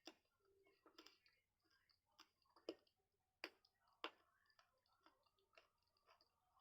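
Faint, close-up chewing of guava: irregular sharp crunching clicks, about one or two a second, with soft wet mouth sounds between them.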